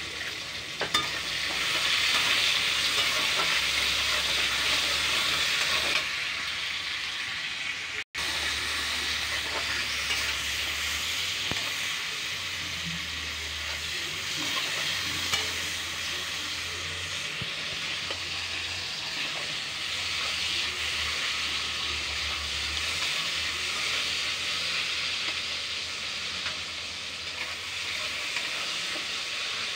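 Tomatoes and spices sizzling in hot mustard oil in a steel kadhai, stirred with a metal spatula. The sizzle is loudest in the first few seconds, and the sound cuts out for a split second about eight seconds in.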